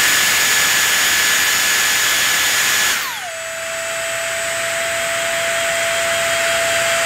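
Dyson Airstrait's fan motor running at high speed with a rush of air and a high whine during its start-up self-cleaning cycle. About three seconds in, the whine glides down in pitch and the airflow drops to a lower speed, then slowly builds a little.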